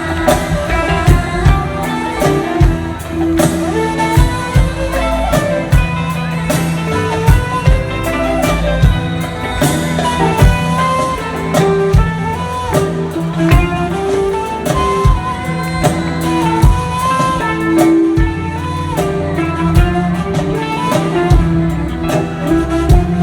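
Live band playing an instrumental break in an Egyptian pop song: a drum kit keeping a steady beat under a melodic lead line, with no singing.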